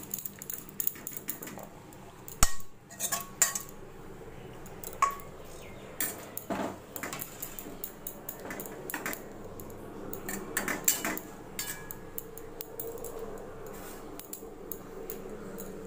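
A metal spoon clinking and scraping against stainless steel dishes in scattered clicks, as cooked bitter gourd is served out and arranged. There is a loud knock about two and a half seconds in.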